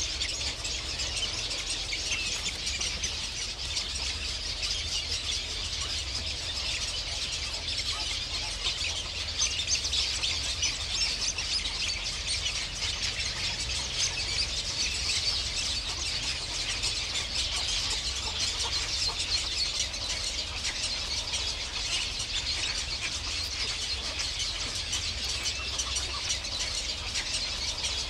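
Many birds chirping at once: a dense, unbroken chorus of short high-pitched calls, a little louder near the middle, over a low steady rumble.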